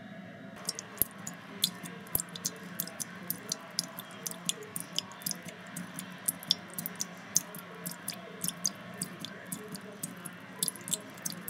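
Irregular sharp crackling clicks, several a second, over a steady low hum; the clicks start about half a second in.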